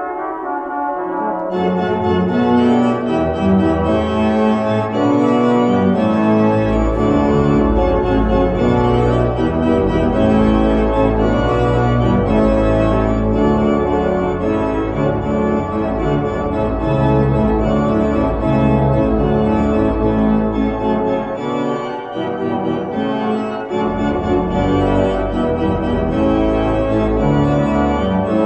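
Organ music: full held chords over a deep bass line that drops out briefly about 22 seconds in and then returns.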